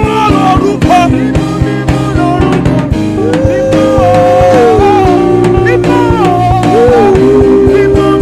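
Worship band music with a steady drum beat under long held melody notes that slide from one pitch to the next.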